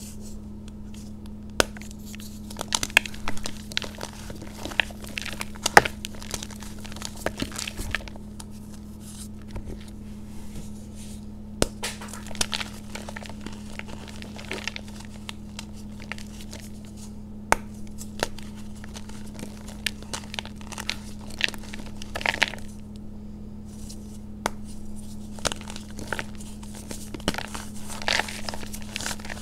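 Soft reformed chalk blocks coated in green powder being squeezed and crumbled by hand: irregular crisp crunches and crackles with powdery rustling between, pausing now and then. A faint steady low hum runs underneath.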